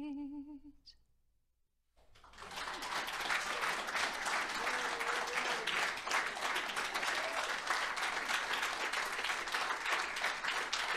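The last sung word, an unaccompanied woman's held note, fades out within the first second; after a moment of silence a congregation breaks into steady applause from about two seconds in.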